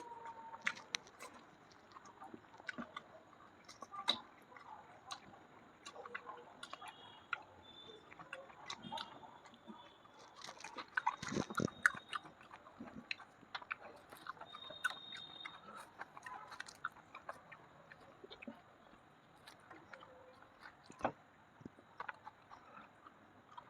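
Close-miked chewing and wet mouth sounds of someone eating deep-fried bread with chicken curry: irregular smacks and clicks, busiest around the middle.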